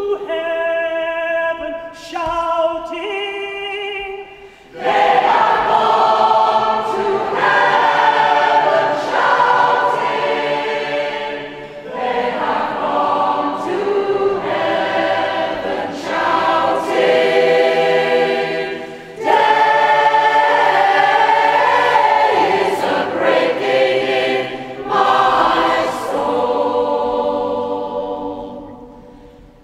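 A large mixed choir of men and women singing a cappella in a cathedral. The opening seconds are a quieter, thinner passage, then the full choir comes in loudly about five seconds in, and the singing dies away near the end.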